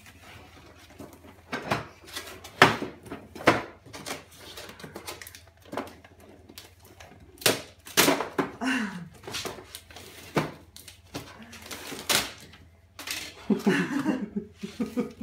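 Wrapping paper being torn off a large present in quick, irregular rips and crackles. A child's short vocal sound comes in the middle, and low voices near the end.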